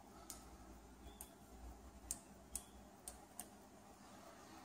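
A small handlebar push-button on an electric ATV being pressed repeatedly: about six sharp, faint clicks at uneven intervals, two of them with a brief high tone.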